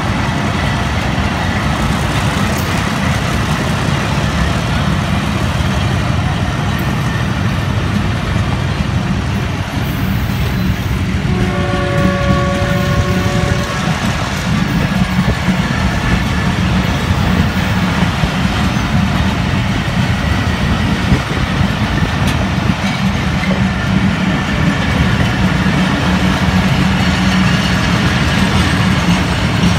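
Passenger train coaches rolling past close by with a steady rumble of wheels on the rails. About twelve seconds in, a train horn sounds once for about two seconds.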